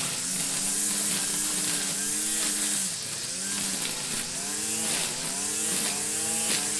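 Grass trimmer running, its pitch sagging and climbing back again and again, about once a second, as it takes and sheds load while cutting, over a steady high hiss.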